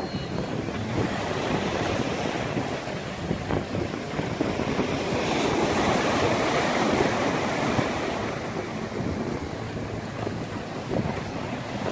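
Ocean surf washing and breaking over shoreline rocks as a steady rushing wash. It swells louder about halfway through as a wave surges in. Wind buffets the microphone underneath.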